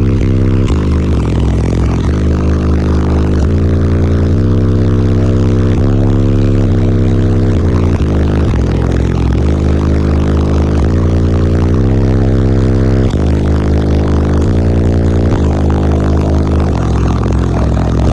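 Loud bass-heavy music playing through a car audio system of eight Concrete Audio C1 12-inch subwoofers on a Taramps T12000 amplifier, the deep bass notes changing about once a second.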